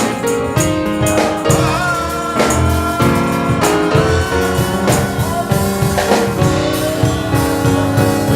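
Live gospel band playing, with drums and sustained keyboard chords, and a singer holding a long note.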